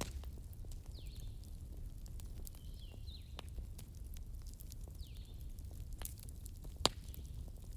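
Bonfire crackling: a low steady rumble of burning with scattered sharp pops, one louder snap near the end.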